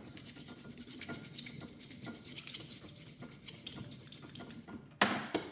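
A screwdriver tip scratching rapidly back and forth over the winding of a microwave oven transformer. It scrapes through the thin paper insulation to bare the wire for a scratch test, to tell copper from aluminum. A brief louder sound comes near the end.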